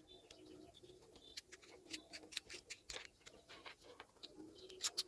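Faint, scattered small clicks and taps of hands handling a lavalier microphone's small plastic parts while closing its back cover over the fitted battery, coming closer together near the end.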